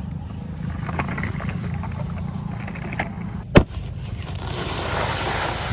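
Steady low rumble of wind on the microphone, with one sharp loud knock about three and a half seconds in, then a rustling hiss.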